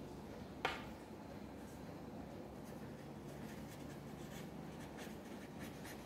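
A pen writing on paper on a clipboard: faint scratching strokes through the second half. A single sharp click comes a little over half a second in.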